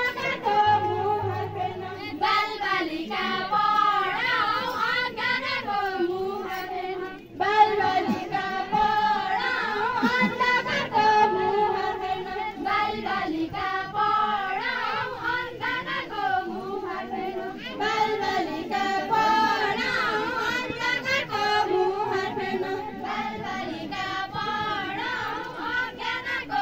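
A group of women's voices singing a folk song together in unison, the high melody moving in short repeated phrases, with a brief pause about seven seconds in.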